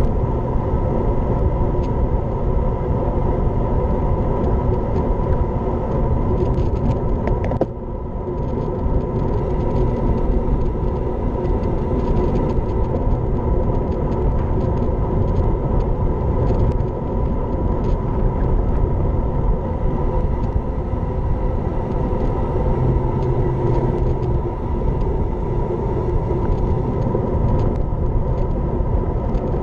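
Wind rush and tyre-on-tarmac noise on an action camera riding on a road bike at speed: a loud, steady rumble that dips briefly about eight seconds in.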